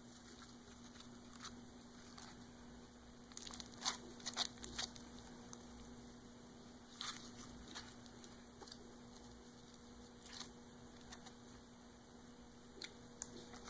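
Slime being squeezed and stretched by hand, making faint scattered crackling and clicking pops, busiest a few seconds in, over a low steady hum.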